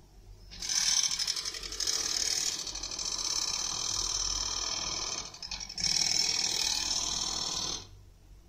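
A loud, rapidly pulsing buzz that runs for about four seconds, breaks off briefly, then comes back for two more seconds and stops abruptly.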